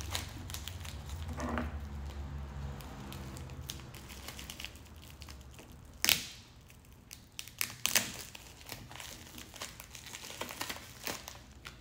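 Deflated plastic bubble wrap crinkling and rustling as it is pulled and cut away from a figure's base, with sharper crackles about six and eight seconds in. A low steady hum runs under the first few seconds.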